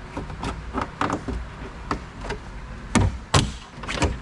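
Irregular knocks, taps and clicks of hands working on car bumper trim, the two loudest knocks close together about three seconds in.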